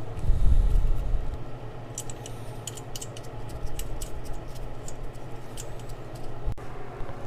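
A dull low thud or rumble about a second in, then a run of light, irregular metallic clicks and clinks from hand tools and fasteners being handled.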